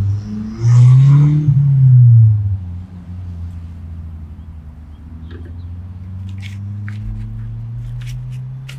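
An engine revs up and back down, then keeps running steadily, its pitch creeping slowly higher. A few faint clicks over it.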